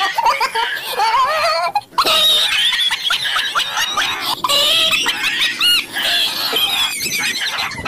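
Dog yelping and squealing in fright, a string of high, wavering cries with a brief break about two seconds in.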